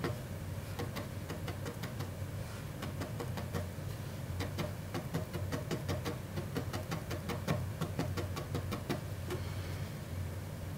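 Felting needle stabbing repeatedly into wool, a run of quick, uneven small taps, over a low steady hum.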